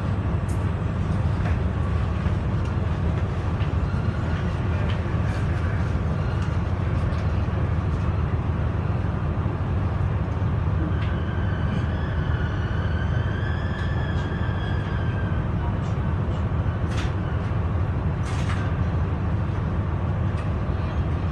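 KiHa 126 series diesel railcar running with a steady low rumble as it pulls into a station platform and stops. A wavering high tone lasts a few seconds in the middle, and a few short clicks come later.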